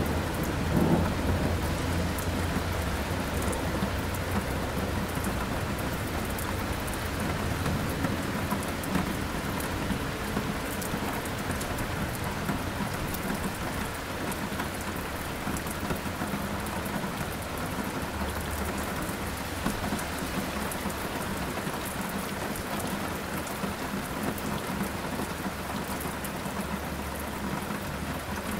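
Steady rain falling, with low rolling thunder that is strongest in the first few seconds and then dies away.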